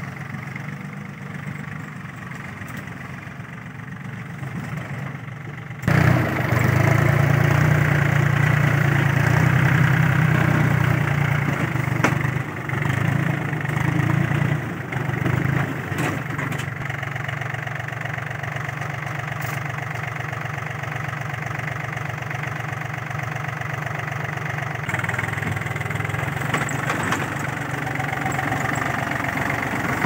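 Yanmar FX265 tractor's diesel engine running steadily; it jumps louder suddenly about six seconds in, then settles to an even run.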